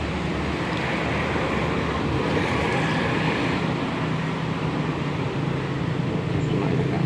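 Steady outdoor background noise, a constant rushing sound with a low hum underneath and no separate events.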